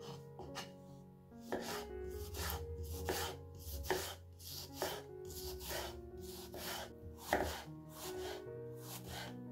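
A knife chopping food on a cutting board in steady strokes, about two a second, over soft background music.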